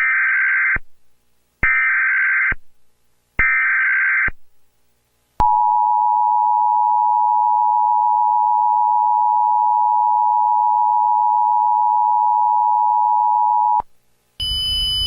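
Emergency Alert System broadcast signal: three short bursts of screeching SAME header data, each just under a second long and spaced evenly, then the long steady two-tone attention signal of about eight seconds that cuts off shortly before the end.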